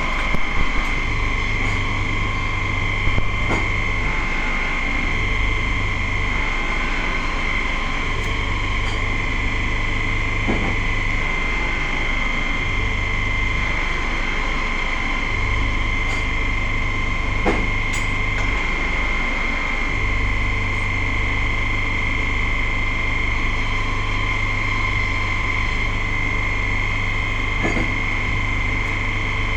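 TIG welding arc buzzing in stretches, struck and broken about six times, over a steady high whine and a few faint clicks.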